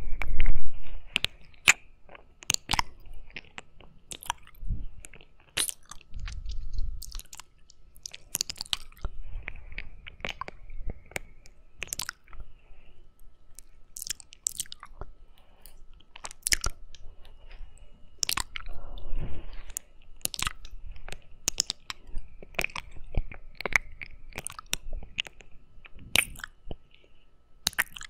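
Wet licking, sucking and lip-smacking close on a binaural microphone's silicone ear: irregular clicks and smacks, with occasional low rumbles as the mouth presses on the ear.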